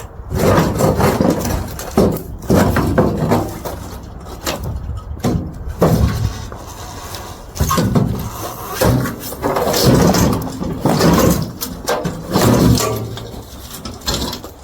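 Irregular banging, scraping and creaking as the utility trailer's side panels are forcibly knocked and pried off.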